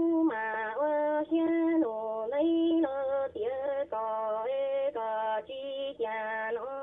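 A woman singing in Hmong: a line of held, sliding notes in short phrases with brief gaps between them.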